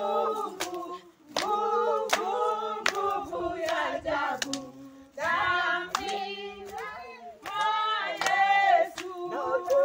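A group of voices singing a church worship song, with hand claps roughly on the beat.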